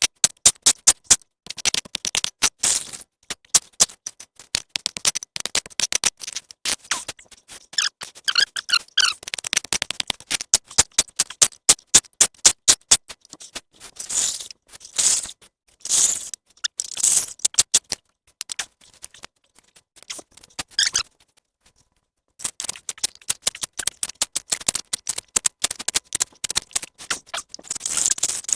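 Rapid, irregular clicks and crackles with occasional scrapes, from clearing a path with a spade through mud, leaves and undergrowth; briefly silent for a moment near the end.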